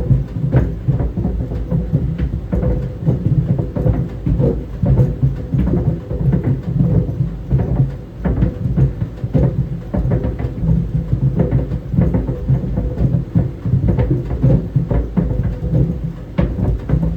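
Tennis balls tumbling in a running clothes dryer: frequent, irregular thuds against the drum over a steady low rumble, with a faint hum underneath.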